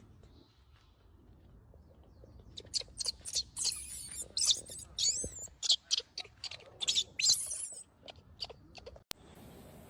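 A young macaque giving a rapid series of shrill squeals and screeches, starting about two and a half seconds in and stopping near the eighth second. These are the distress calls of an infant being weaned. A single sharp click follows about a second later.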